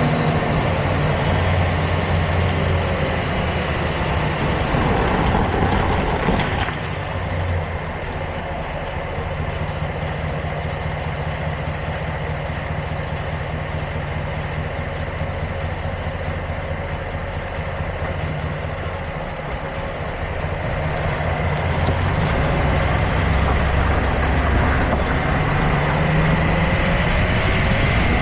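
Vehicle engine running steadily; its sound drops a little about six seconds in and builds again a few seconds before the end.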